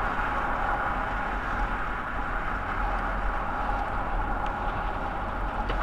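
Steady road and engine noise of a car driving, an even hum without any impact.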